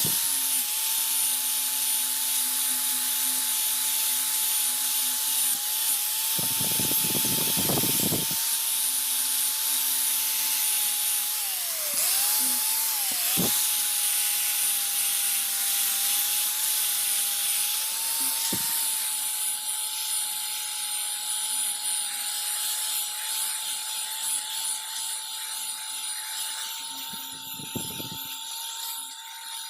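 High-speed power tool running steadily with a high whine and hiss. A rougher stretch comes about six to eight seconds in, and the pitch dips briefly twice around the middle as it loads up.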